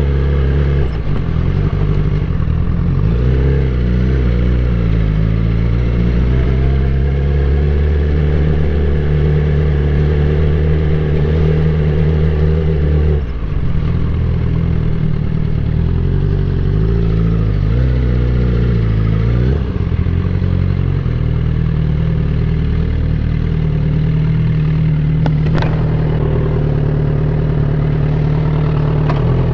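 Suzuki GSX-R1000 K8 motorcycle's inline-four engine running under way, its pitch rising and falling with the throttle several times, with a brief dip about halfway through as the throttle is shut off.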